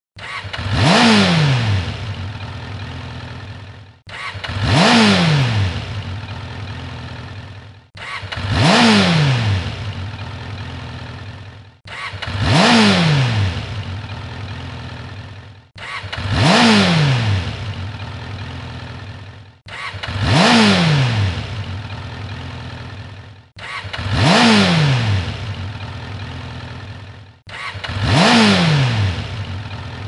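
Ducati motorcycle engine revving: a sharp throttle blip whose pitch climbs and then falls away as the revs drop, the same short recording looped eight times, about every four seconds.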